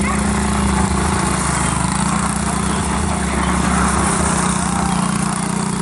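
Small Chinese 90cc ATV's single-cylinder engine running at a steady speed as it circles, with gravel crunching under the tyres.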